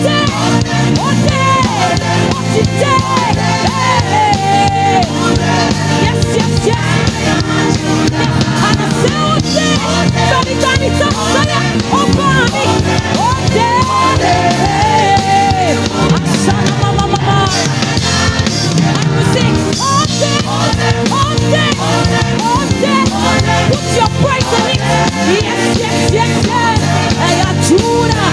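Live church praise-and-worship band playing an upbeat song with drums and bass guitar, with singing over it.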